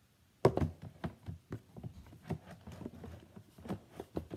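Small plastic paint pots clattering and clicking against each other and a plastic bin as they are sorted. A sharp knock about half a second in is the loudest, followed by a string of irregular lighter clicks.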